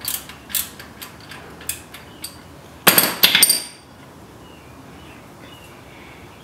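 Light metal clicks as a loosened oil drain plug is worked out by hand, then a short burst of ringing metal-on-metal clinks about three seconds in.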